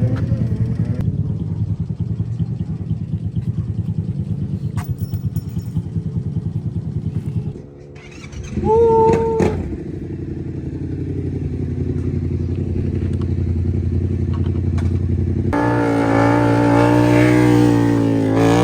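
KTM supermoto motorcycle engine running with a fast pulsing beat, dropping off briefly just before the middle. Then it climbs steadily in revs and runs hard at higher revs over the last few seconds. A short high-pitched tone that rises and then holds cuts in about nine seconds in.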